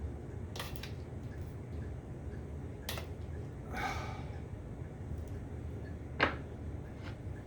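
Hand-tool work on a stubborn part, heard as three sharp metallic clicks and knocks, the loudest about six seconds in, with a brief pitched squeak near the middle over a steady low hum.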